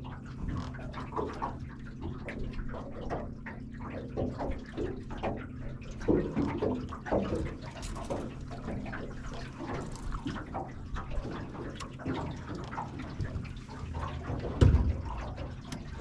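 Water lapping and splashing against a boat's hull, with many small irregular splashes over a steady low hum. A single hard thump about fifteen seconds in.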